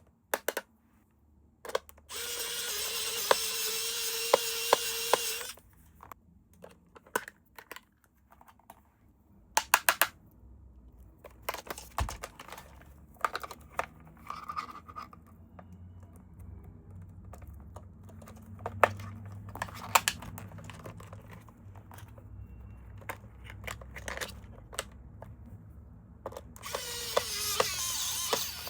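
A small electric motor whirs steadily for about three seconds, then again briefly near the end as its pitch sags. Between the two runs come scattered clicks and knocks of plastic being handled.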